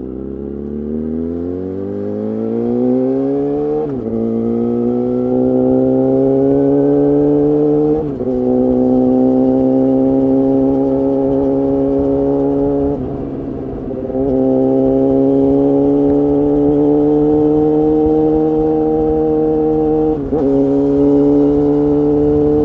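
Suzuki GSX-R750 inline-four engine running loud through an Akrapovic exhaust with a Spark silencer. The note rises over the first few seconds, then holds fairly steady, with four short breaks that sound like gear changes.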